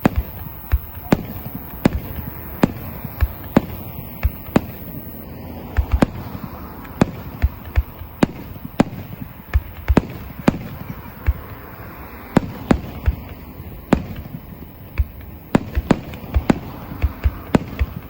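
Fireworks bursting: an irregular run of sharp bangs, sometimes several a second.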